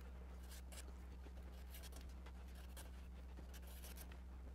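Marker pen drawing along a wooden blank, tracing the edge of a curved pattern strip: a series of short, faint strokes over a steady low hum.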